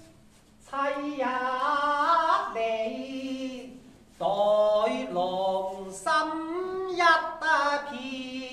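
Cantonese opera singing: a voice sustaining two long, drawn-out phrases with wavering, gliding notes, broken by a short pause about four seconds in.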